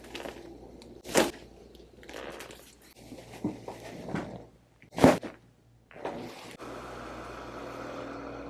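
Chiropractic adjustments: two sharp cracking knocks, one about a second in and a louder one about five seconds in, with a few softer knocks between them.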